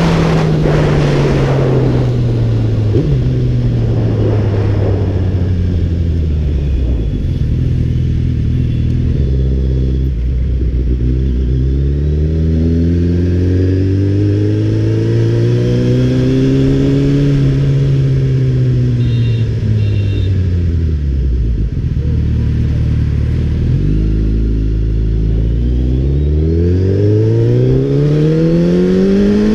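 Suzuki Hayabusa's inline-four engine heard from the rider's seat while riding in traffic. Its pitch falls over the first several seconds as the bike slows, rises and falls again with the throttle in the middle, and climbs near the end as the bike accelerates.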